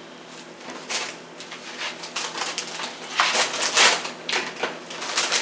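Close-up chewing of a large bite of tuna salad sandwich on a soft bun: irregular small wet clicks and soft crunches, with a couple of louder rustling smacks a little past halfway.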